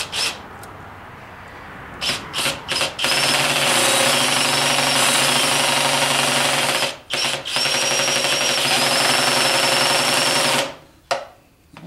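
Cordless drill turning an oil pump primer in a Chevy 350 small-block: a few short trigger blips, then a steady run with a high whine, stopping briefly about seven seconds in before running again until near the end. The owner thinks the primer is riding on top of the pump drive rather than seated, so oil pressure is not building.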